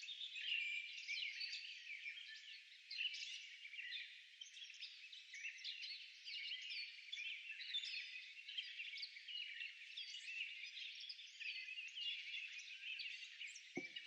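A flock of small birds chirping and twittering steadily and faintly, many short overlapping calls at once.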